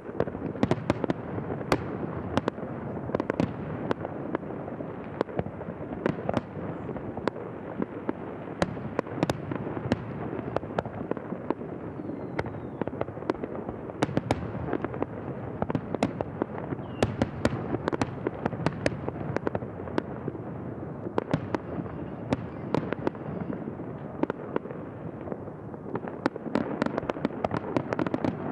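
Fireworks display going off without a break: a dense rumble of overlapping bursts with many sharp cracks throughout.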